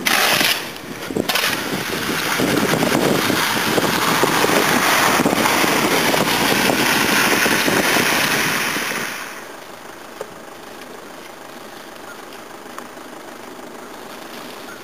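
A few scrapes of a snow shovel on the pavement, then a car driving on a slushy, snow-covered road, its tyres hissing through the slush over the engine. About nine seconds in this gives way to a quieter steady hiss.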